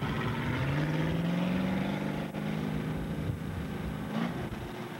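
Engine of a drag-racing vehicle under hard acceleration. Its pitch climbs over the first two seconds, holds steady, then rises again just after four seconds in before the sound cuts off.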